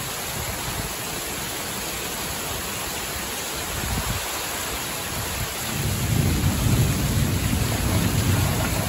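Heavy thunderstorm rain pouring steadily, with a low rumble of thunder building from about six seconds in.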